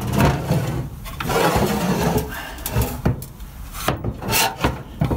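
A Citroën 2CV gearbox's metal casing scraping and rubbing on the workbench as it is turned over by hand, with a few knocks as it is set down.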